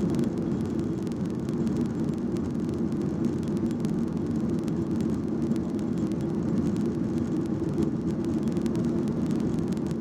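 Steady low drone of cabin noise inside a Skymark Boeing 737-800 airliner: jet engines and rushing air, holding an even level.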